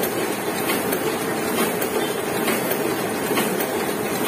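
Heidelberg KORS single-colour offset printing press running steadily, its inking rollers turning during a roller wash-up. A constant mechanical noise with a light click about once a second from each turn of the press.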